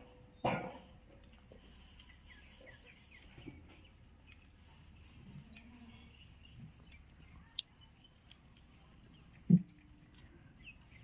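Quiet goat-pen sounds: faint bird chirps, a few scattered clicks and knocks, and one short, loud goat bleat about nine and a half seconds in.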